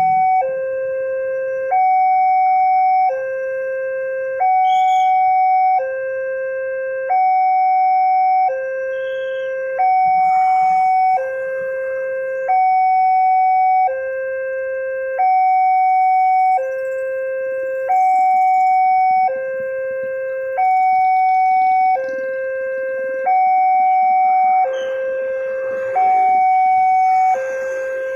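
Railroad level-crossing warning bell sounding an electronic two-tone alarm, a higher and a lower tone about a second each, alternating evenly without a break: the crossing's signal that a train is coming and the barriers are down.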